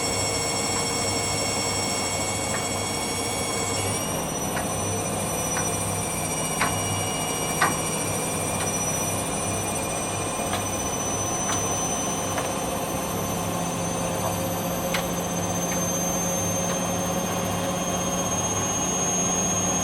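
Hoover Dynamic Next washing machine spinning up between 800 and 1000 rpm: a steady motor hum with a high-pitched screeching whine that edges slowly upward, the tones shifting about four seconds in as the speed steps up. The owner puts the screech down to the motor bearing. A few faint clicks.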